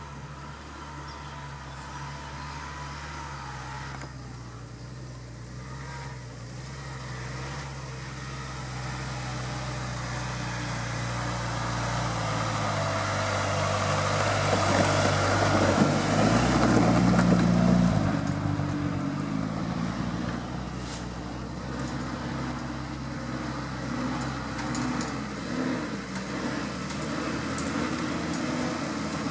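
Off-road vehicle engine running under load. It grows steadily louder for about sixteen seconds, peaks, then drops back and keeps running.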